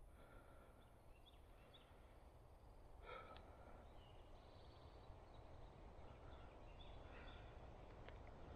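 Near silence: quiet outdoor ambience with a few faint, short high chirps scattered through it.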